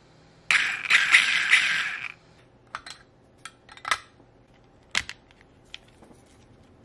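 Workbench handling of an RC truck: a scratchy tearing or rasping sound lasting about a second and a half, then a scattering of light clicks and taps from parts and tools being handled.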